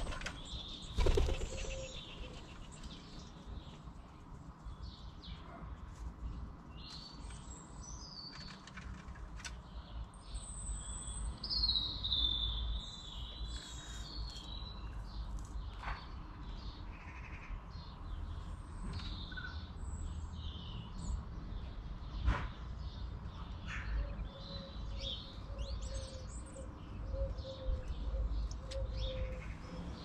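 A wood pigeon takes off with a loud clatter of wings about a second in. After it, small garden birds chirp and sing on and off, with a few sharp clicks and a low rumble underneath.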